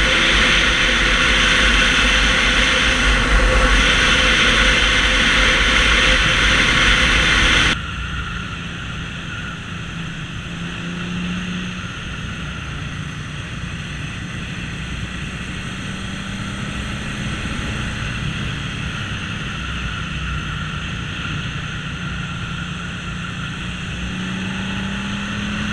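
1979 Yamaha XS750 three-cylinder engine with a MAC 3-into-1 exhaust, running while the bike is ridden, its carbs rejetted for the exhaust and pod filters. Heavy wind rush covers it for the first several seconds, then the sound drops abruptly to a quieter, steadier engine note that rises near the end.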